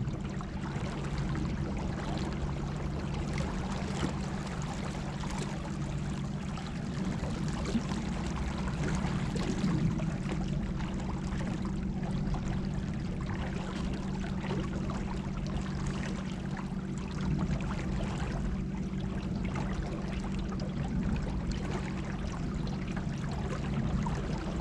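Water rushing and gurgling along a small boat's hull under way, over the steady hum of its twin electric trolling motors.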